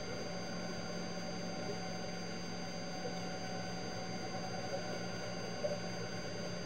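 Steady underwater ambience picked up through a waterproof camera housing: a constant low hum and hiss with two faint high steady tones, and a few small clicks, the sharpest near the end.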